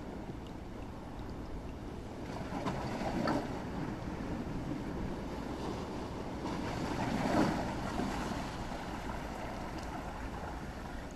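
Seashore ambience: wind rumbling on the microphone with the wash of small waves, swelling louder twice.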